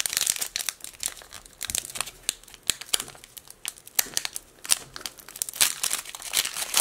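Foil wrapper of a hockey card pack crinkling and tearing as it is opened by hand, in a quick run of sharp crackles.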